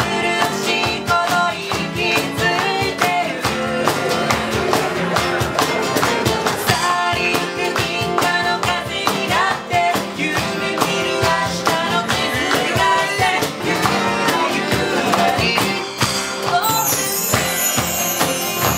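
A band playing live: a woman singing over strummed acoustic guitar and hand percussion. Near the end, a mark tree's hanging chimes are swept in a shimmering run.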